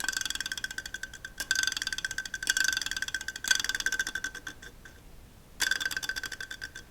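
Small fan motor of a car interior heater running in several bursts, a steady high whine with a rapid ticking rattle: the fan blade catching on the base beneath it.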